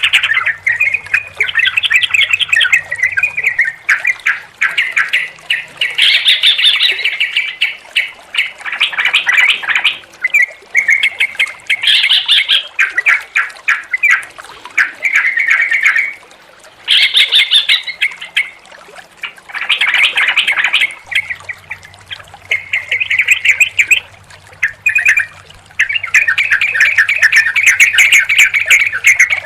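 Yellow-vented bulbuls (trucukan) singing in fast, bubbling, chattering phrases that overlap and follow one another with short pauses.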